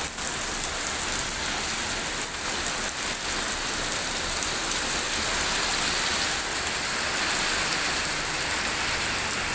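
Rain falling steadily, an even, continuous hiss.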